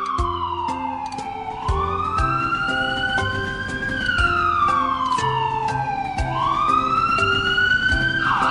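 Emergency-vehicle siren wailing, its pitch sliding slowly down and up about twice, then switching to a rapid warble near the end, over background music with a steady beat.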